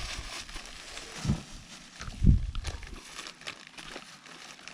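Tools and packaging being handled: a couple of dull thumps, the louder one about two seconds in, with light knocks and rustling.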